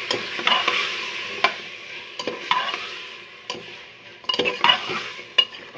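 Chicken pieces sizzling in hot oil and ghee in a pressure cooker pan while being stirred, the utensil scraping and clinking against the pan about eight times.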